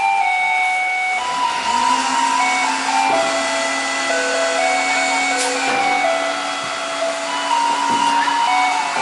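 Garbage truck's compactor mechanism running with a steady hum and hiss, beginning about a second in, while the truck's loudspeaker plays its collection melody. The title calls this an abnormal noise during compaction.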